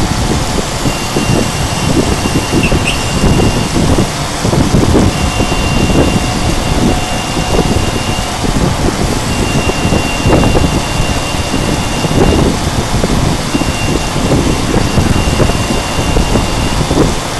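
CNC router running and cutting acrylic, a steady loud machining noise with a thin high whine that starts and stops several times.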